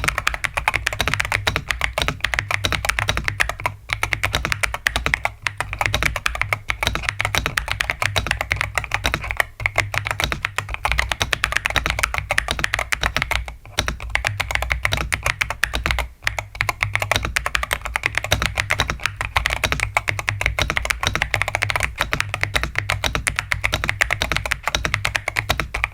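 Fast, continuous typing on a mechanical keyboard fitted with new Dangkeebs Strawberry Milk Ice tactile switches, not lubed, with a few brief pauses in the keystrokes.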